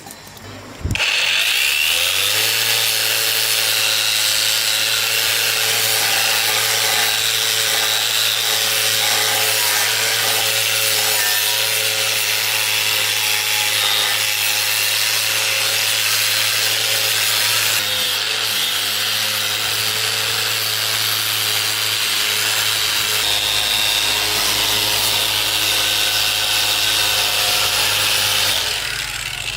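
An electric power tool is switched on, spins up over a second or two, then runs steadily while working the material with a loud hissing rasp, and stops near the end.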